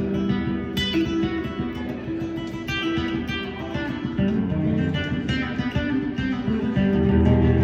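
Guitar music: plucked notes and strums over sustained bass notes, with a lower bass note coming in near the end.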